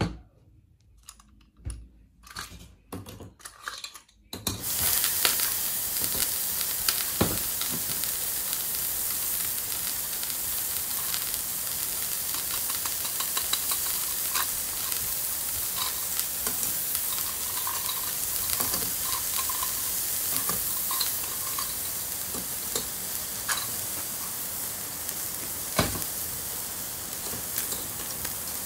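Toy barbecue grill's electronic sizzling sound effect: a steady frying hiss that starts about four seconds in, with light clicks of plastic skewers being set on the grill.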